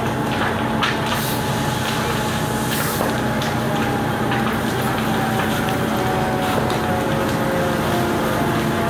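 A fire engine's engine running steadily, a constant hum under a hiss of spraying water, with a few sharp cracks in the first few seconds.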